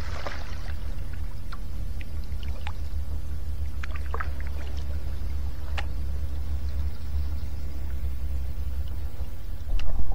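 Muffled underwater rumble picked up by an action camera held below the surface, with scattered faint clicks and ticks. It grows louder and rougher near the end.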